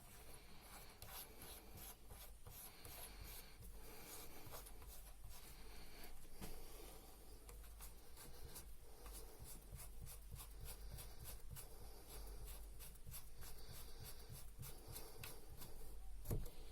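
Faint scraping, rubbing and light clicks of small metal parts handled by hand while a Bosch common rail diesel injector is reassembled.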